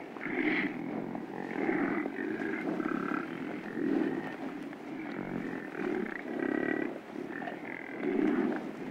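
Wildebeest grunting calls, one after another about once a second, with other calls of slightly different pitch overlapping.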